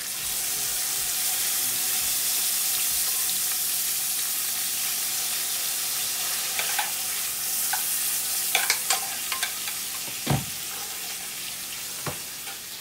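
Asparagus frying in a pan of butter, bacon grease and olive oil, sizzling loudly as soy sauce is poured into the hot fat, then slowly dying down. A metal spoon clicks against the pan as it is stirred, with a sharper knock about ten seconds in.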